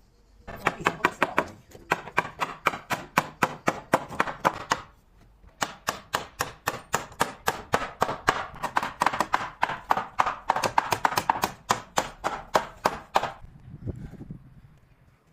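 Hammer driving nails into timber formwork boards: fast, even blows, about six a second, in two long runs with a brief pause between them.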